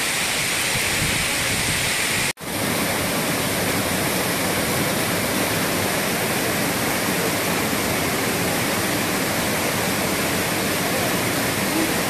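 Makhuntseti waterfall, a 40-metre fall, rushing steadily: a dense, even noise of falling water. About two seconds in the sound drops out for an instant and resumes unchanged.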